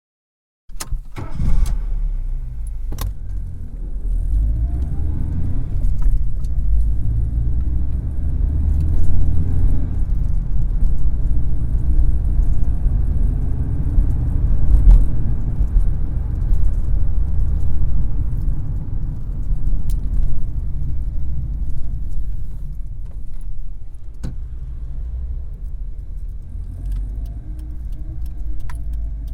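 Car engine heard from inside the cabin: it starts with a few sharp clicks about a second in, then runs with a steady low rumble that rises and falls in pitch, with occasional clicks.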